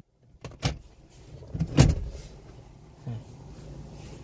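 A few knocks and thumps of handling inside a car's cabin, the loudest about two seconds in, over a low steady hum, after a short silence at the start.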